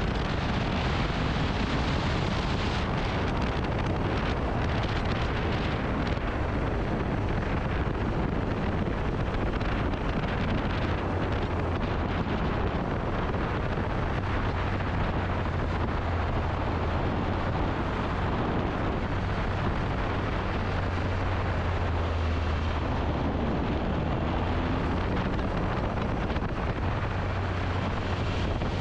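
Large adventure motorcycle riding at steady speed: wind rushing over the microphone, with the engine's low drone underneath.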